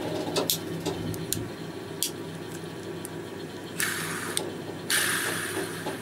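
Homemade wooden fidget cube being played with: a few sharp clicks of its rocker switch and buttons in the first two seconds, then two longer bursts of hiss as it is handled and spun, the louder one near the end.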